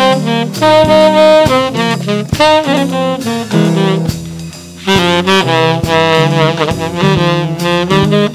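Saxophone playing a jazz melody line over acoustic guitar and a drum kit. The saxophone phrases break off for a short pause about halfway through, then start again.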